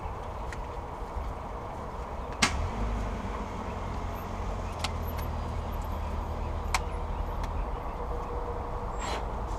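Sharp clicks and knocks of parts being fitted by hand in a car's engine bay: three distinct clicks, the loudest about two and a half seconds in, over a steady low rumble.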